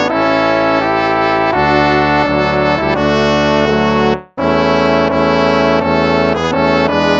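Instrumental hymn music in brass tones, played in held chords that move every half second or so. It breaks off briefly about four seconds in, then the phrase starts again.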